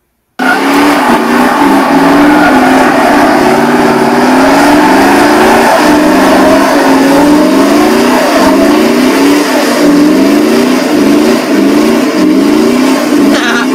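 1998 Dodge Ram 1500's 318 (5.2-litre) V8 held at high revs during a burnout, its pitch climbing and falling back again and again as the rear wheels spin.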